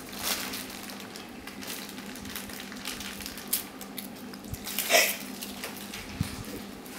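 Foil wrapper of a chocolate surprise egg crinkling and tearing as it is unwrapped, in scattered short crackles, with a louder sound about five seconds in over a steady low hum.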